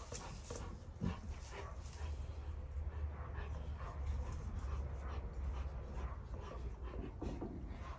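A puppy making short, repeated whines and yaps, over a steady low hum.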